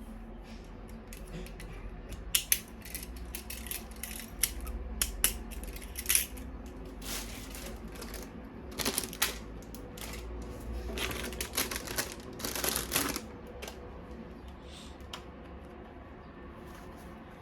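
Plastic toy parts and packaging being handled: irregular clicks, snaps and short rustles, thickest in the middle, thinning out over the last few seconds.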